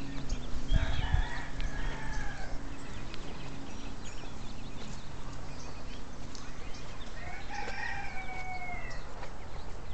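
Rooster crowing twice, each crow a drawn-out call that drops in pitch at the end, about six seconds apart, with a brief low rumble near the start.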